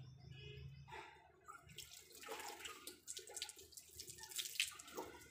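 Faint water splashing and dripping onto wet concrete during handwashing of laundry, a scatter of small irregular splashes and drips.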